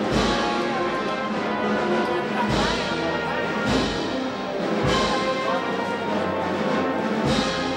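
Wind band playing a Holy Week processional march: sustained brass and woodwind chords over a slow beat. A bass drum and cymbals strike together about every 1.2 seconds.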